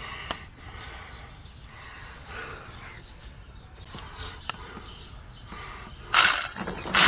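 Hand tools working the bolts of an oil filter adapter housing on an engine: faint clicks, taps and rattles of metal. About six seconds in there is a short, loud rush of noise.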